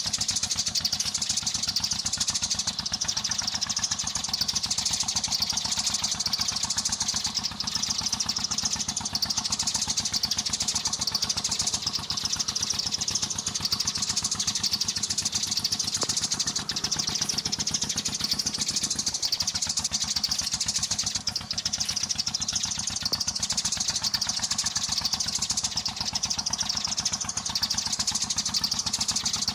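Dense, continuous chirping and chattering of sparrows, the kind of sparrow call used to lure flocks to glue traps.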